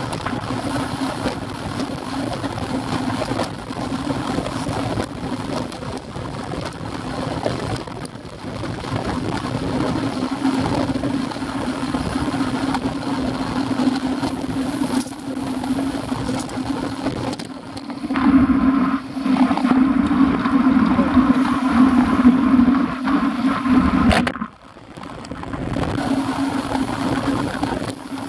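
Wind and tyre noise on a bicycle-mounted action camera riding on a wet road: a steady, muffled rumbling drone. It grows louder from about two-thirds of the way through, then drops sharply for a moment near the end before returning.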